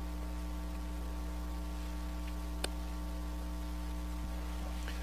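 Steady electrical hum with a stack of overtones, the kind of mains hum picked up by a sound system or recording chain, with one faint click about two and a half seconds in.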